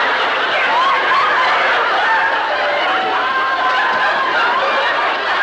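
An audience laughing steadily, many voices overlapping without a pause.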